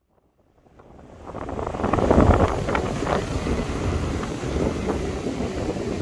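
Wind buffeting the microphone over the wash of surf breaking on a pebble beach, fading in from silence over the first two seconds.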